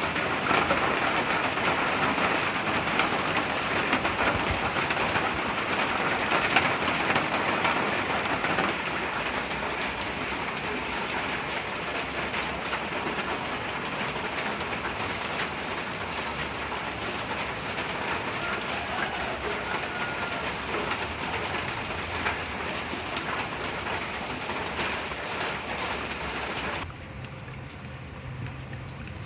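Heavy rain falling steadily, a dense hiss of drops. It eases a little about nine seconds in, then drops abruptly to a quieter, softer patter near the end.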